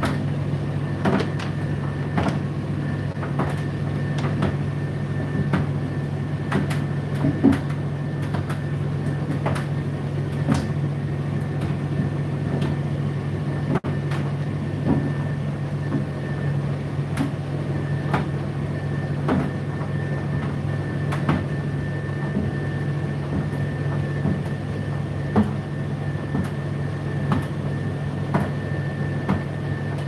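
Indesit IDC8T3 condenser tumble dryer running: a steady low motor hum with a thin, steady high tone over it, and irregular light clicks and knocks as the drum turns.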